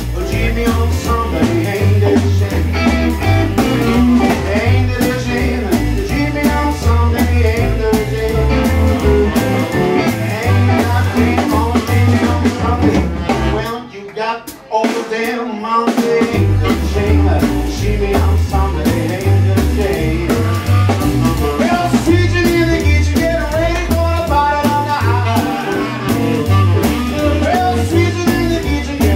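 A live swing band plays with a steady drum-and-bass beat under a male singer, electric guitars, saxophone and piano. About halfway through, the band stops for about two seconds, then comes back in.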